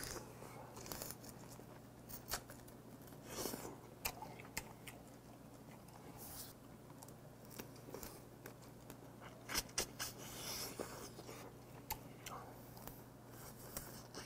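Eating sounds of a man biting and chewing cooked crab pieces, with scattered short crackles and clicks of shell. A faint steady hum runs underneath.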